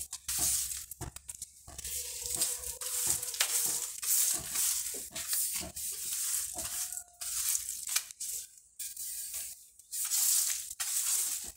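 A broom sweeping dry leaves across a tiled floor: repeated scratchy strokes, about one a second.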